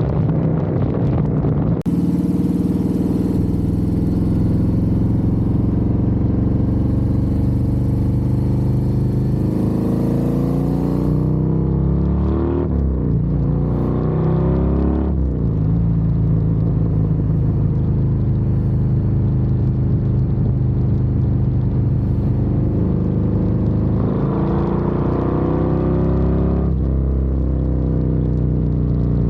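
Harley-Davidson Road Glide's Milwaukee-Eight 117 V-twin with a Screaming Eagle Stage 2 511 cam, running through a Thumper Moto stainless 2-into-1 exhaust while riding. It runs at a steady cruise, falls and picks back up in pitch about halfway through, and revs up and then drops suddenly near the end, as on an upshift.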